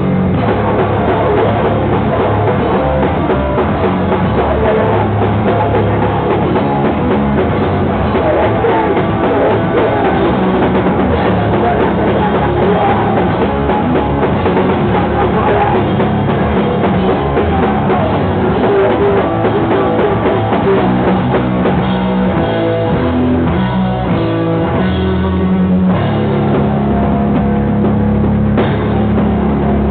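Live rock band playing loud and continuously, with distorted electric guitars over a full drum kit.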